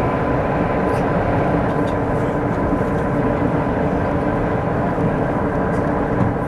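Cabin noise inside a KTX-Sancheon high-speed train running at about 300 km/h: a steady, dense rumble with a faint steady whine over it.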